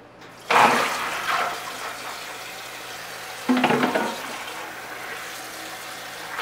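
Water gushing and running into a stainless steel sink as soaked navy beans are drained and rinsed under the kitchen tap. A loud gush comes about half a second in and settles into steady running water, with another splash about three and a half seconds in as hands stir the beans.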